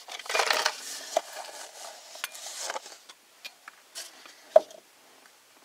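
Rustling and light clicks of a paper coffee cup being handled, with a rustle in the first second and one sharp knock about four and a half seconds in.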